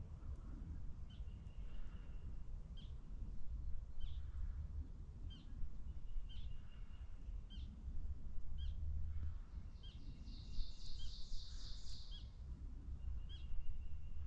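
Small songbirds chirping, short calls about once a second, with a brief rapid trill about ten seconds in, over a steady low rumble of wind on the microphone.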